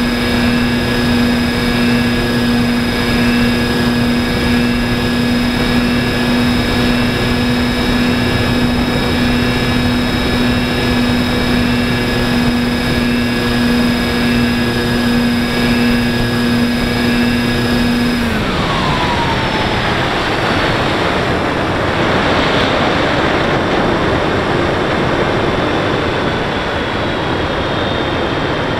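Model airplane's motor and propeller droning at a steady pitch, heard from on board. About two-thirds of the way through the motor winds down, its pitch sliding quickly downward, and the drone gives way to a steady rush of wind over the airframe as it glides.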